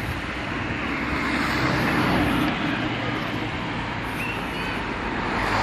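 Road traffic noise: cars passing on a town street, a steady rush that swells about two seconds in and again near the end.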